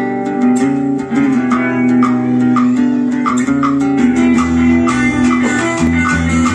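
Live band playing a song: guitars, bass guitar and drum kit with a steady beat.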